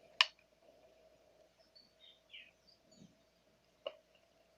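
A mostly quiet stretch over a faint steady hum, with a sharp click just after the start, another click near the end, and a few faint high chirps about halfway through.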